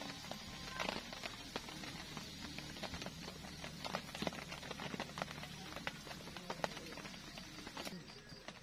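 Rain falling on a tent or tarp, heard as irregular pattering and scattered drips and taps.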